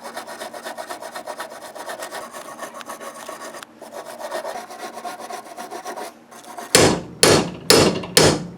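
Fast hand strokes scraping and filing metal on the door-hinge mount, cleaning up where the old hinge was cut off. Four louder, harsher strokes come near the end.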